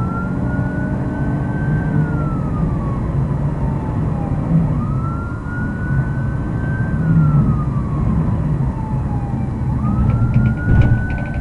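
Police car siren on a wail cycle: it rises quickly, holds high for about two seconds, then glides down, repeating about every five seconds. Under it is the steady engine and road noise of the Ford Explorer Police Interceptor driving at speed, with a short clatter of knocks about ten seconds in.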